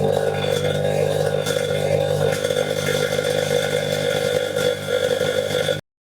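LG microwave oven running with a high-pressure sodium lamp capsule arcing inside: a loud, steady electrical buzz with a few faint crackles. It stops abruptly near the end.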